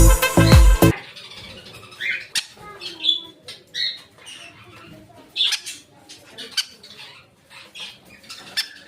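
Music with a steady beat cuts off about a second in, then pineapple conure chicks give scattered short squawks and chirps.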